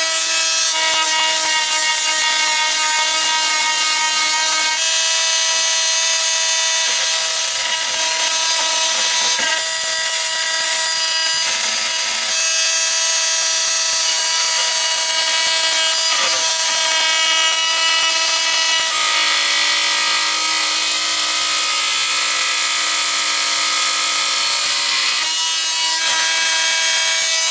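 Oscillating multi-tool cutting a notch into a wooden cabinet side: a steady, high-pitched buzz with a rasp from the blade in the wood, its tone shifting a few times as the blade bites, and slowing as the tool is switched off at the end.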